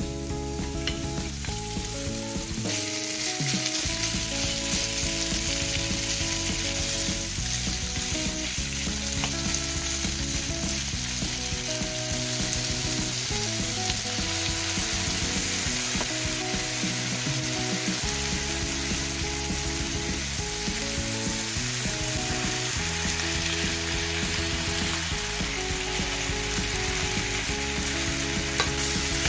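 Chicken breast pieces frying in butter and garlic in a nonstick pan: a steady sizzle that swells about three seconds in, once the raw chicken is in the hot fat.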